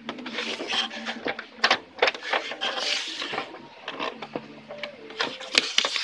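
Irregular clicking, rattling and scraping from the plastic and metal mechanism of an opened Brother DCP-T310 inkjet printer, with a few sharp clicks about one and a half seconds in and again near the end.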